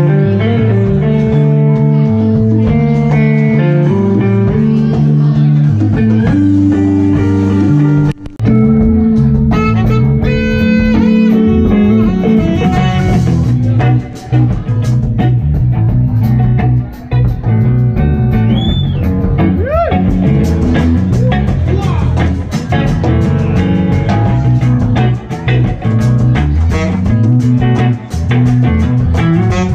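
A live band playing an instrumental number: electric guitar, electric bass and drum kit, with a brief break about eight seconds in.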